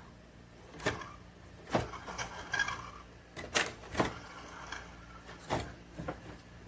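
Haceb conventional air conditioner running with a steady low hum and irregular sharp knocks and clicks about once a second. Its evaporator blower motor is struggling to start, a sign of worn bearings and a dry shaft bushing.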